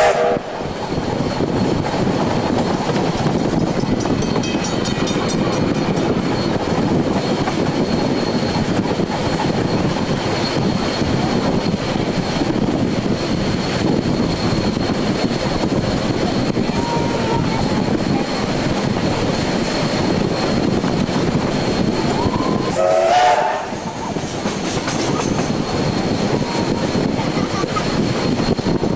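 Train hauled by the steam locomotive W 192 running on the track: a steady rumble with clickety-clack from the wheels. About three-quarters of the way through comes one short, wavering pitched sound.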